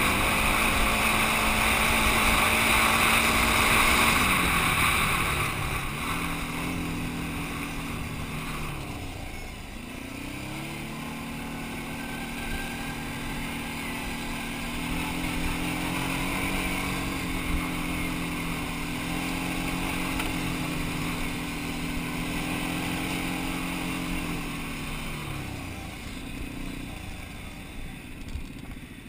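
Quad ATV engine running as it rides a gravel trail, its pitch dropping and rising several times with throttle and gear changes. A loud rushing noise covers the first four seconds.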